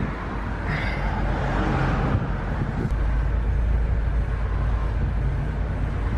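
Steady low rumble of engine and road noise inside a moving manual-transmission car's cabin, growing a little stronger about three seconds in.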